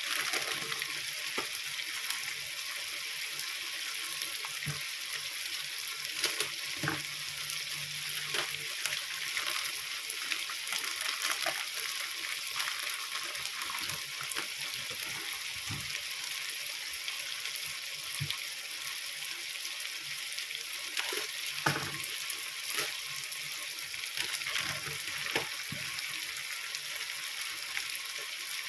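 Food sizzling steadily in a hot pan as it is stir-fried, with the utensil knocking and scraping against the pan now and then.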